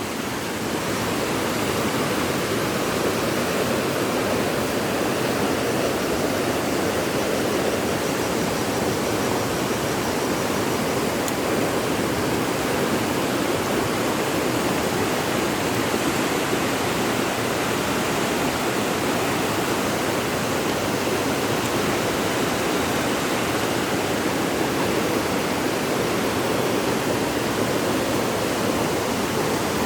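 Floodwater rushing steadily down a creek swollen by heavy overnight rain.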